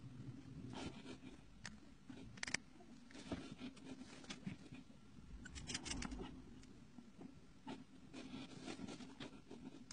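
Broad-nibbed calligraphy pen scratching across paper in short, faint strokes as Arabic letters are drawn, with a brief cluster of quick scratches about halfway through.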